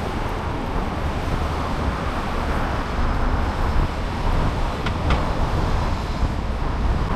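Steady outdoor street noise with a low rumble, and two faint ticks about five seconds in.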